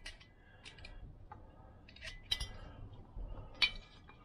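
Sharp metallic clicks and clinks as a Vespa PX cylinder barrel is worked down its studs over the piston, its rings pressed closed with a screwdriver; about half a dozen short clicks, the loudest near the end.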